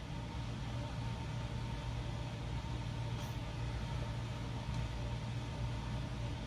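Steady low hum and hiss of a room air-conditioning unit running, with a faint constant higher tone.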